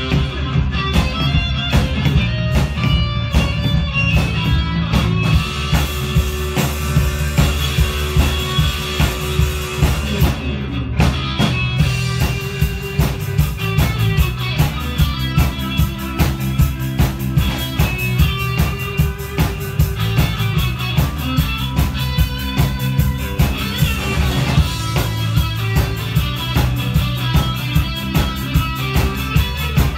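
Live rock band playing an instrumental with no vocals: electric guitar over a drum kit keeping a steady beat. The cymbals drop out briefly about ten seconds in.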